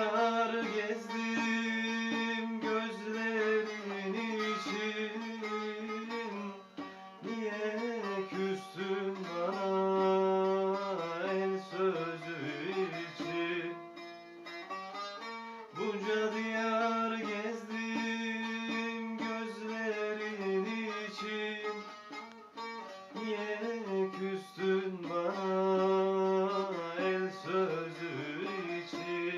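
Instrumental interlude of a Turkish folk song: a plucked string instrument plays the melody over a held low note.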